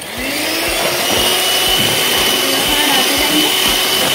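Electric hand mixer switched on and running steadily, its motor rising to speed just after the start, with a steady high whine as the beaters churn cake batter.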